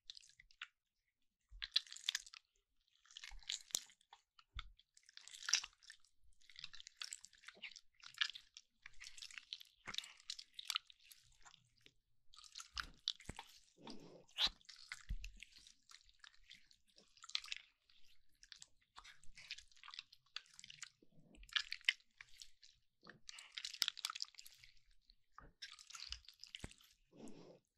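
Slime being squished and stretched close to the microphone: repeated spells of wet crackling and popping every second or two, with sharp little clicks.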